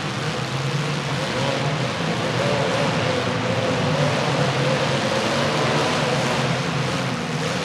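Demolition derby cars' engines running and revving unevenly under a steady wash of noise, with no crash impacts heard.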